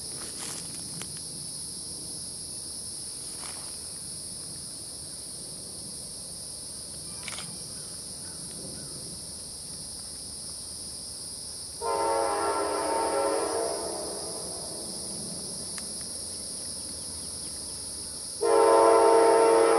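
CSX diesel freight locomotive's air horn sounding for a grade crossing as the train approaches. A low rumble of the oncoming train comes first, then one long horn blast about twelve seconds in that dies away, and a second loud blast begins near the end.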